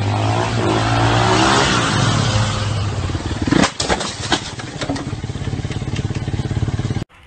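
A vehicle engine running loud, its pitch sliding during the first couple of seconds, then a cluster of sharp impacts and clattering about three and a half to four and a half seconds in, typical of a crash. The engine sound carries on after the impacts.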